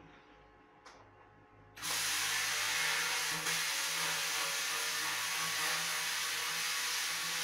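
Plasma cutter cutting through the steel shell of an electric water-heater tank. After a faint click about a second in, it starts suddenly about two seconds in with a loud, steady hiss.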